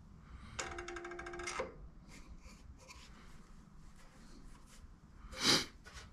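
A ringing tone with a fast rattle through it, lasting about a second, like a bell ringing. Then a few light clicks and, near the end, a short, loud, sharp clank or scrape.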